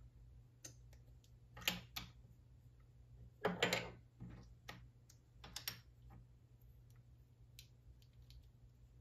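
Plastic LEGO mech parts clicking and clattering as they are handled and snapped together, in irregular bursts; the loudest come about one and a half and three and a half seconds in.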